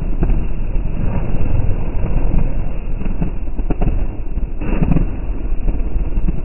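Dirt bike and sport quad engines running and revving at close range, with frequent short sharp crackles and a louder burst about five seconds in.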